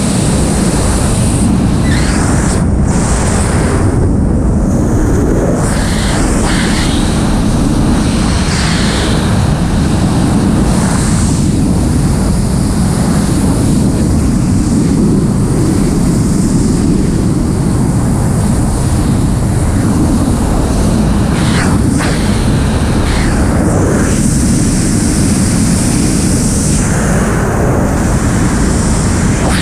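Freefall wind rushing over the camera's microphone during a skydive: a loud, steady rush of wind noise, deepest and strongest at the bottom, its upper hiss shifting now and then as the jumper's body position changes.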